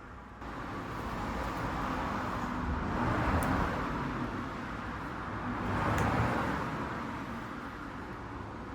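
Yamaha EF1600is inverter generator's small single-cylinder four-stroke engine starting up about half a second in and running, its speed swelling and easing twice. It runs again after its clogged carburettor has been taken apart and cleaned.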